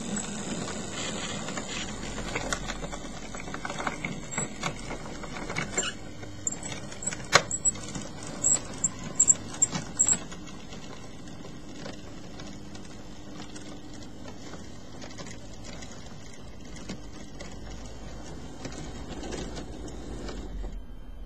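OO gauge model train, a small tank locomotive hauling coaches and vans, running along the track. Its wheels click and clatter over the rail joints and pointwork, most sharply and loudly in the first half, then settle to a steadier, quieter running noise.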